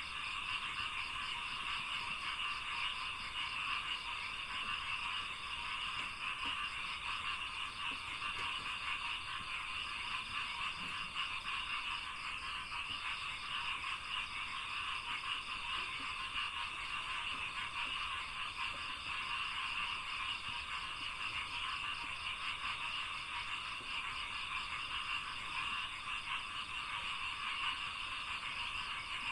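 Dense chorus of many frogs calling at once in rice paddies, merging into a steady, unbroken trilling din with a fast pulsing texture.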